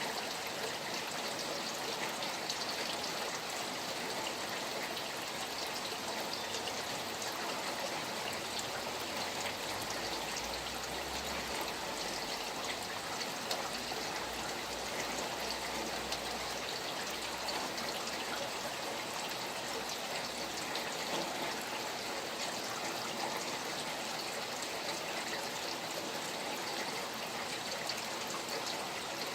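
Steady rain falling together with running water from a stream: a continuous wash of many small drops.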